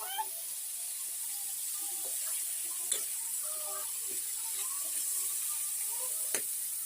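Steady high hiss of sabji sizzling as it cooks, with a sharp click about three seconds in and another near the end.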